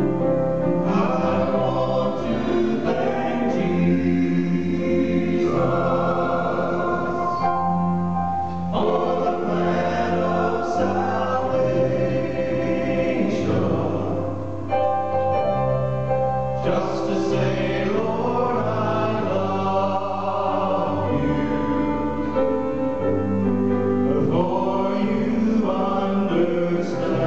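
Live southern gospel music: a men's vocal group singing in harmony over a band of bass guitar, drums and keyboard.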